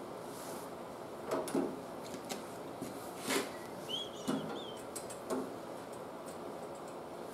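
Diagonal cutters and thin steel mechanics wire being handled: a handful of light, sharp clicks and taps, the sharpest about three seconds in, with a short high chirp just after it.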